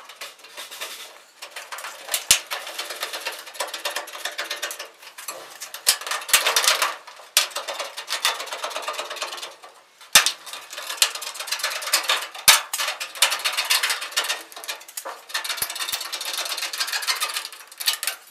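Green aviation snips cutting through the galvanized sheet-metal bottom of a supply duct, a fast, dense run of snipping clicks and metal crackle with a few sharper snaps, the recording sped up.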